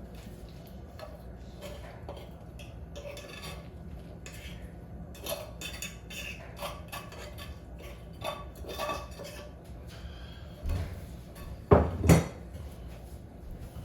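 Kitchen utensils clinking and scraping against dishes and pans, with scattered light clicks and two louder knocks close together near the end.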